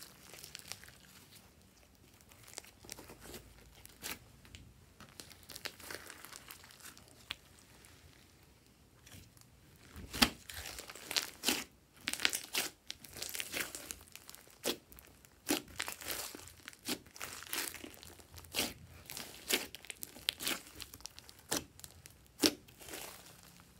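Hands squishing, stretching and pressing glossy slime: soft, sticky crackling at first, then from about ten seconds in a run of sharp, irregular pops and clicks as trapped air bursts out of the slime.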